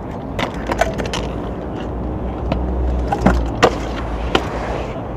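Stunt scooter wheels rolling on concrete with a steady rumble, broken by several sharp clacks of the deck and wheels striking the ground, the loudest a little past halfway. Near the end the scooter deck grinds along a concrete ledge with a scraping sound.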